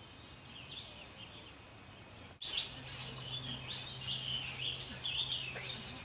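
Small birds chirping: a few faint high chirps at first, then after an abrupt break about two and a half seconds in, a louder run of quick high chirps and trills over a steady low hum.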